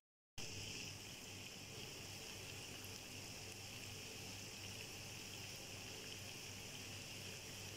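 Potato fingers sizzling in hot oil in a frying pan: a steady, even hiss that starts just after a moment of silence at the very beginning.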